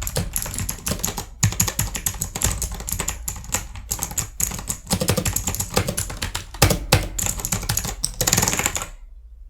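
HP GK300 mechanical keyboard being typed on fast to demonstrate its switch sound: rapid, irregular key clicks, ending in a quick flurry about a second before the end.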